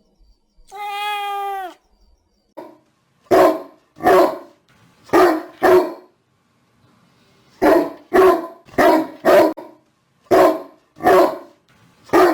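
A dog barking repeatedly, about eleven sharp barks, several coming in quick pairs. They follow a single drawn-out pitched cry about a second in.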